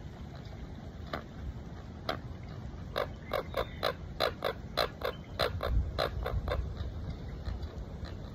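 An animal giving a quick run of short, harsh calls, about a dozen in three and a half seconds, after a couple of single calls earlier on. Wind rumbles on the microphone throughout.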